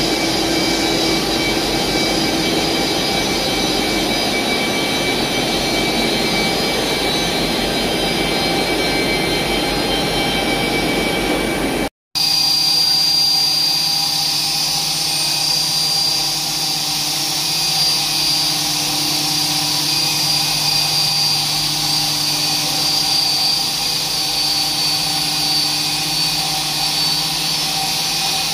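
Polyester POY spinning line running: a steady, loud machine rush around the spinning cabinets. After a sudden break about twelve seconds in, high-speed take-up winders run with a steady whine made of several held tones.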